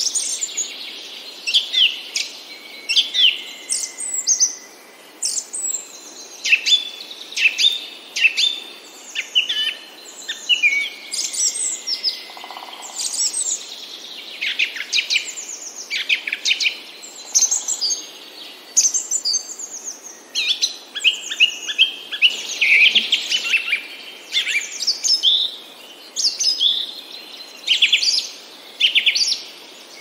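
Several songbirds singing at once in a dense, continuous chorus of high chirps and quick downward-sweeping notes.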